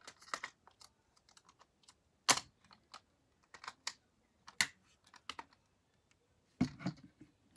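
Irregular clicks and taps of objects being handled close to the microphone, with one sharp click about two seconds in and a denser cluster of knocks near the end.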